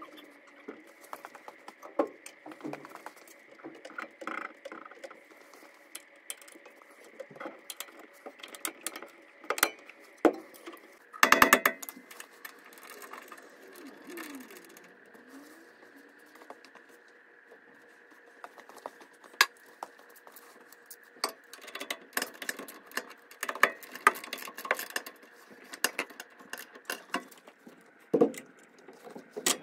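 Irregular metallic clicks, clinks and knocks of hand tools and bolts as a coilover shock's lower eye is bolted to the rear axle mount, with a dense run of rapid clicks about eleven seconds in. A faint steady hum runs underneath.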